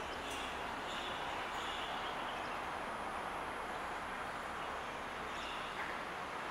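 Steady background noise, an even hiss and rumble, with a few faint short high tones now and then.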